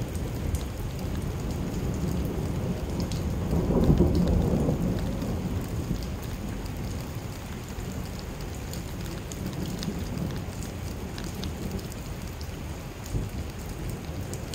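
Thunderstorm: steady rain with a low rumble of thunder that swells about four seconds in and slowly dies away.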